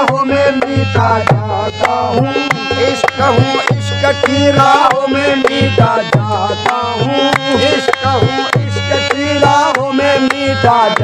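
Qawwali music: tabla drumming in a steady rhythm under a sustained, wavering melody line, with no sung words.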